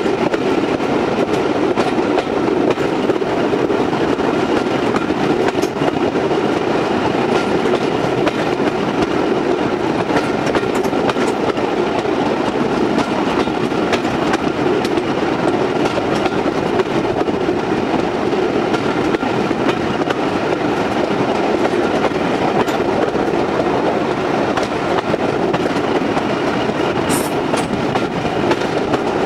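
Passenger train running steadily at speed: a continuous rumble of wheels on rail with faint clicks of rail joints, even in level throughout.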